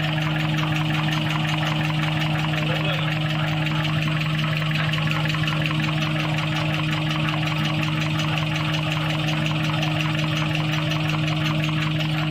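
4-lane V-fold hand towel paper converting machine running steadily: a constant mechanical hum with a fast, even clatter underneath.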